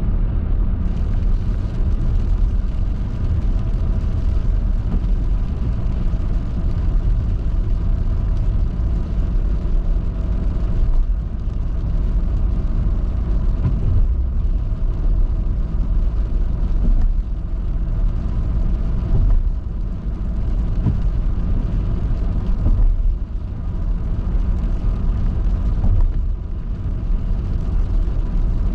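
Vehicle driving on a wet highway in the rain: a steady low rumble of engine and tyres on the road.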